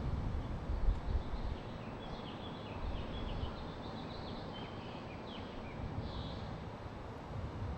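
Small birds chirping in quick short notes over a steady low rumble of outdoor background noise, the rumble heavier during the first second or so.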